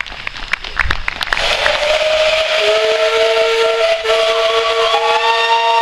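Several steam locomotive whistles sounding together, coming in one after another after a burst of steam hiss about a second and a half in, with a lower whistle joining about a second later and a higher one near the end. A few sharp clicks come before the whistles.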